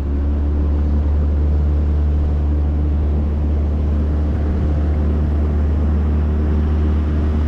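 Boat's outboard motor running at a steady speed, a constant low hum.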